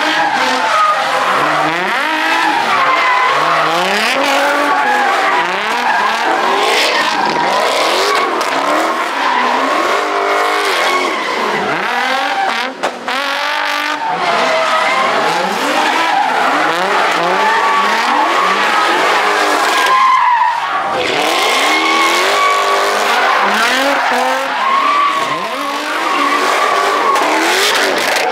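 Car engines revved hard, their pitch swinging up and down over and over, with tire squeal from cars drifting.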